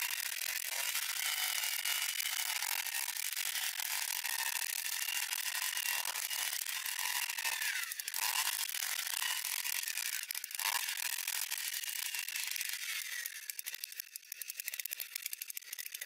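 Handheld earth auger's 49.9 cc single-cylinder two-stroke engine running at high revs as the 10 cm bit bores into hard, dry soil, its pitch wavering and dipping as it loads up. Near the end the throttle comes off and it drops to a quieter, rapidly ticking idle.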